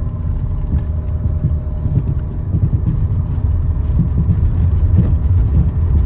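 Steady low rumble of a moving road vehicle: engine and tyre noise while driving.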